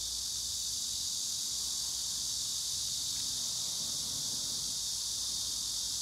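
Steady, high-pitched chorus of singing insects, a dense shrill drone with no break.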